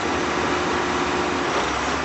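A heavy engine running steadily with a constant hum; about one and a half seconds in, the low rumble grows stronger.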